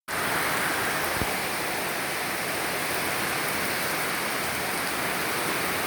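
Heavy rain falling, a steady even hiss of a downpour.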